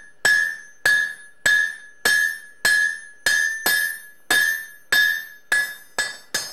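Hand hammer striking a hot steel bar laid over a hardy on the anvil, cutting off a small piece: a steady rhythm of just under two blows a second. Each blow rings out with a clear metallic tone that dies away before the next.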